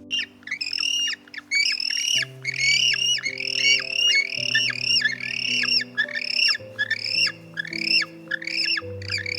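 A bird squawking over and over, about three harsh, arching calls a second, with steady background music underneath.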